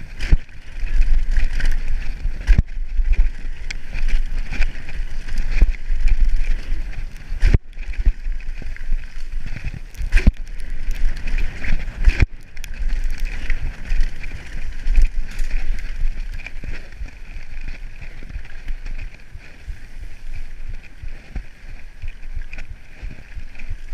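Giant Reign full-suspension mountain bike descending a dirt trail at speed: tyres running over the dirt with the frame and parts rattling, wind buffeting the microphone, and several sharp knocks as the bike hits bumps.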